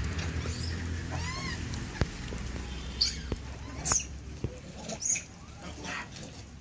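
Monkeys giving a few short, high, arching squeaks about a second in, with sharp clicks and knocks of handling and movement scattered through.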